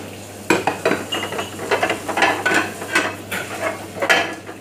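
Ceramic plates and dishes clinking and clattering irregularly as they are handled and stacked while being washed up, some knocks ringing briefly, over a low steady hum.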